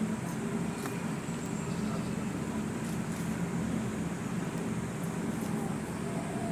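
Steady low background rumble, like distant traffic or machinery, with a faint high steady tone and a few faint ticks.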